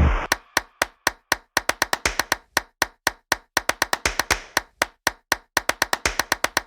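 Background music in a stripped-down break: only sharp wood-block-like clicks in a quick, steady rhythm of about four a second, with silence between them.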